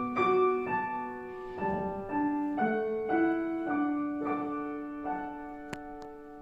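Instrumental ending of a children's song: a piano-like keyboard accompaniment plays a slow melody of held notes and chords after the singing has stopped, gradually getting quieter, with two faint clicks near the end.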